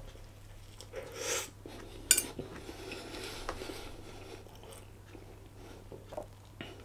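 Biting into and chewing a chilli dog in a soft bread bun, with a single sharp click about two seconds in and a few fainter clicks later.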